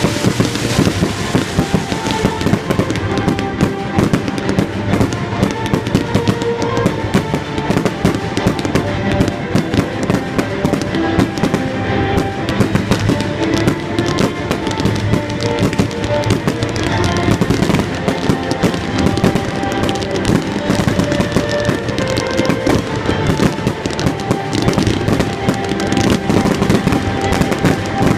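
Professional fireworks display: a dense, continuous stream of rapid bangs and crackles, with music playing alongside.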